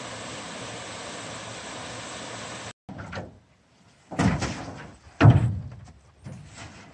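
Steady rush of a small woodland waterfall cascading over rocks, which cuts off suddenly a little under three seconds in. Hollow knocks and thumps of an aluminum canoe hull follow as someone steps and climbs into the boat, the loudest about five seconds in.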